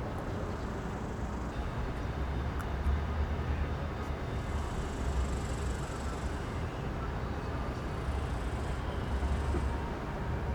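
Outdoor street noise: a steady low rumble that swells a few times.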